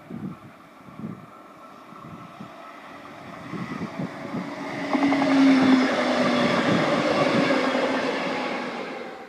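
Red double-deck regional push-pull train with an electric locomotive at the rear, approaching and passing at speed: a rising rush of wheels on rail with rapid clicking, loudest in the last few seconds, with a steady hum briefly over it. Wind buffets the microphone as the train draws near, and the sound cuts off suddenly at the end.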